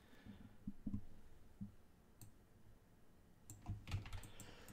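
Faint, scattered clicks of a computer keyboard and mouse, coming more often near the end.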